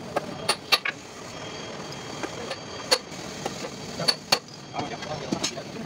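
A handful of sharp metallic clicks and clinks, irregularly spaced, from a lever-type valve spring compressor being worked over the valves of a diesel cylinder head, steel on steel.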